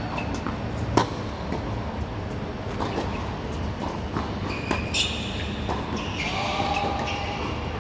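Tennis rally on a hard court: racket strikes on the ball about every two seconds, the loudest about a second in, with fainter ball bounces between them.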